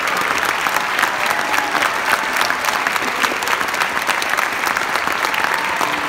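Audience applauding, many hands clapping at once in a steady, unbroken wash.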